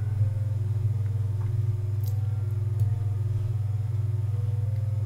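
Soft background music: a slow melody of single pure notes, changing about every half second, over a steady low hum.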